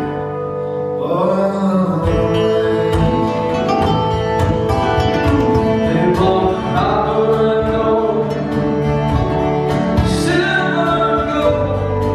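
Acoustic folk band playing live: strummed acoustic guitars with a bowed fiddle over a steady rhythm, and a voice singing in short phrases.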